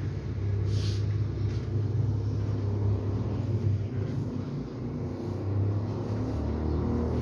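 Steady low rumble of a gas-fired press iron's burner as the iron is pushed back and forth over silk cloth.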